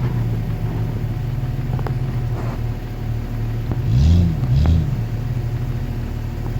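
An off-road vehicle's 4.0-litre engine running steadily at low revs, then blipped twice in quick succession about four seconds in, the revs rising and falling each time.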